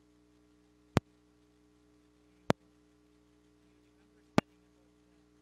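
Pulpit microphone and sound system giving a steady electrical hum, broken by three sharp pops a second and a half to two seconds apart as a hand handles the microphone.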